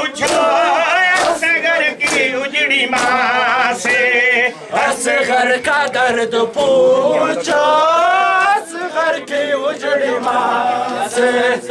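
A man sings a Shia Muharram noha (lament) in a wavering, drawn-out voice. Mourners beat their chests in time with it, a sharp slap about once a second.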